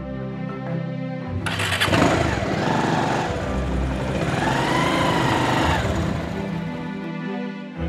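Motorcycle engine starting about a second and a half in, then revving up and back down, over background music.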